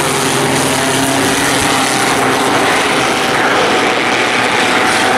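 Several race car engines running together, a steady, loud, overlapping engine drone.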